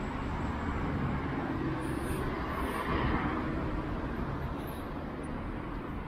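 Steady street traffic noise, with a vehicle passing and swelling louder about three seconds in.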